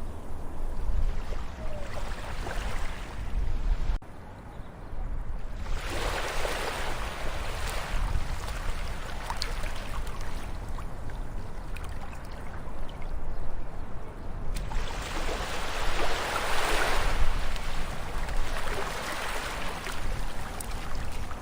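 Ocean waves washing onto the shore: a steady wash of surf with a low rumble, swelling into two larger breaking waves about six and sixteen seconds in.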